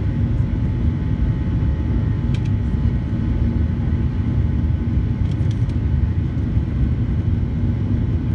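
Steady cabin rumble of a Boeing 737-800 climbing out, its CFM56-7B engines and the airflow heard from a window seat, with a steady low hum running through it. A few faint clicks come about two seconds in and again past the middle.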